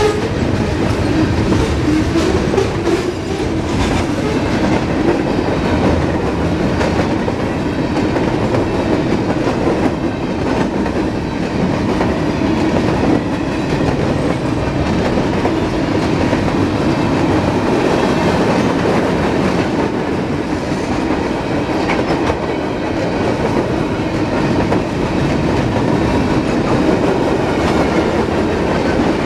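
Freight cars of a Norfolk Southern manifest train rolling past, a steady rumble of steel wheels clacking on the rails.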